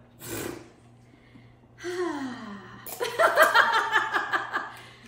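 A woman laughing heartily in a run of quick pulses, preceded by a single falling vocal 'oh' a couple of seconds before. There is a brief rush of noise near the start.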